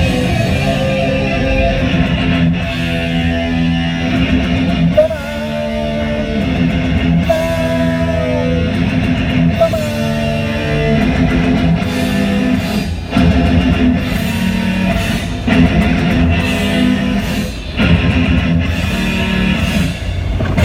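Rock music with electric guitar and bass.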